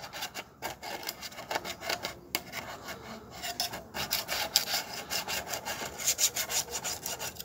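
Steel wool scrubbing paint-stripper-softened paint off a sheet-metal engine fuel tank in quick, repeated back-and-forth scraping strokes.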